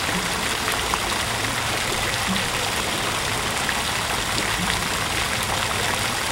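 Water running steadily into an ornamental garden pool, an even rushing splash with no change.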